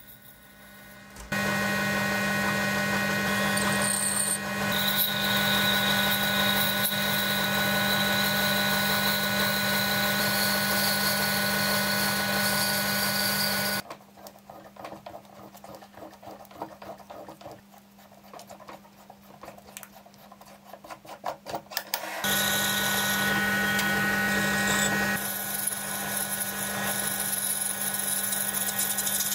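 Small metal lathe turning a brass rod: the motor and spindle hum steadily, starting about a second in. Midway the lathe stops for several seconds of quieter, irregular clicking and scraping as the rod's end is threaded with a die. The lathe then starts again to part the piece off.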